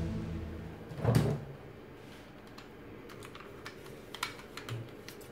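Hard plastic toy robot parts being handled: one knock about a second in, then a few light clicks.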